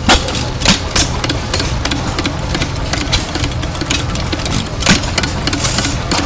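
Milwaukee Machine Works sideshaft hit-and-miss engine running with a steady low chugging. Sharp pops come at uneven intervals, three in the first second and another about five seconds in: the engine firing only now and then as it hits and misses.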